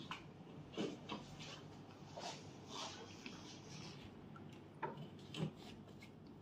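Irregular light clicks, knocks and rustles of a bed guard rail's metal tube and plastic fittings being handled and pushed into place against the bed frame, the sharpest knocks a little under a second in and about five and a half seconds in.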